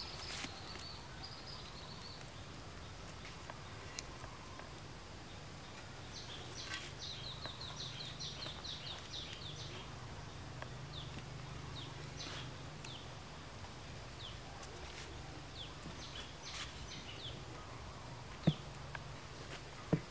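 Birds calling over the outdoor background: partway through, a bird gives a quick run of chirps lasting a couple of seconds, with scattered single chirps before and after. Two sharp knocks come near the end.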